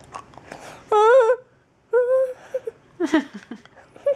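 A young girl whimpering: two short, high, whiny cries about one and two seconds in, the first wavering in pitch, followed by a few softer vocal noises.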